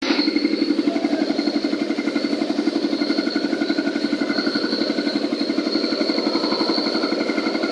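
Cement concrete mixer machine running steadily: an engine throb with a fast, even pulse and a steady high whine over it.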